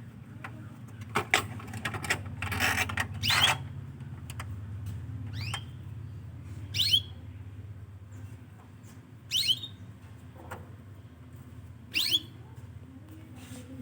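Canary giving short, sharp chirps that each sweep down in pitch, about five of them two to three seconds apart. A brief rustling noise comes about two to three seconds in.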